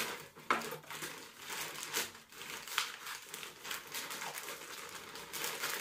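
Plastic mailer bag crinkling and rustling as it is pulled open by hand, with irregular sharp crackles.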